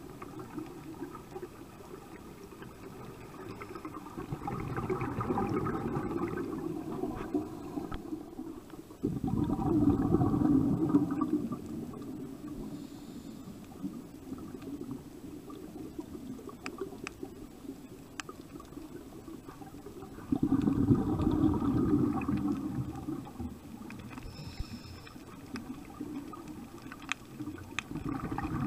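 Scuba exhalation bubbles heard underwater: bursts of gurgling, rumbling bubbles several seconds apart, with a low wash of water noise and a few faint clicks between them.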